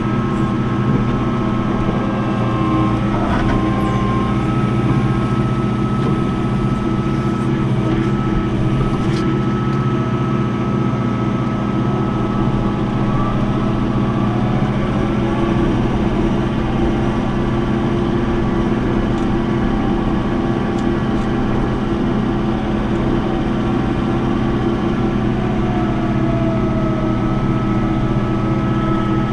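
John Deere 4066 compact tractor's diesel engine running steadily.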